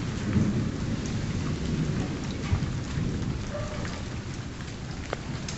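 Thunderstorm: steady rain falling, with a low rumble of thunder underneath.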